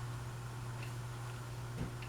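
Harbor Breeze Pulsar ceiling fan running, its motor giving a steady low hum, with two short clicks, the louder one near the end.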